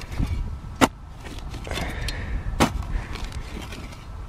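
A digging spade striking down into field soil twice, two sharp strikes almost two seconds apart, over low wind rumble on the microphone.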